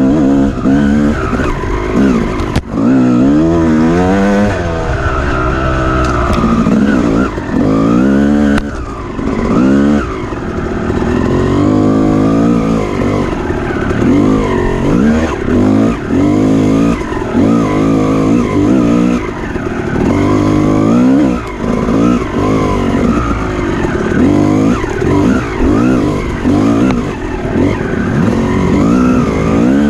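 Off-road dirt bike engine revving up and dropping back over and over as it is ridden hard, each rise lasting a second or two. Two sharp knocks stand out, one a few seconds in and another near the ninth second.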